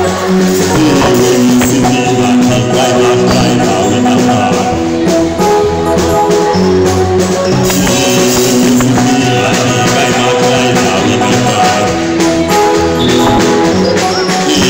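Church choir leading a praise song, singing over continuous instrumental accompaniment with jingling percussion.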